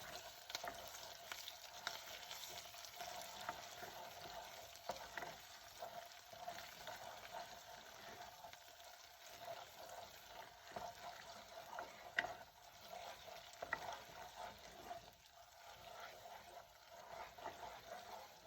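Tomato paste frying in hot oil in a pot, a faint sizzle with scattered light clicks as it is stirred.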